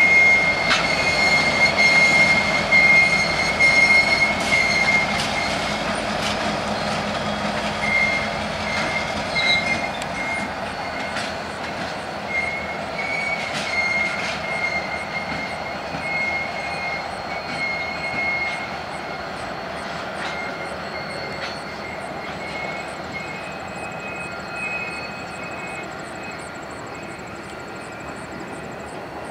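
BNSF diesel locomotives rolling slowly past, their wheel flanges squealing on the rail in a high steady tone that breaks off and returns. The sound fades away as the locomotives move off.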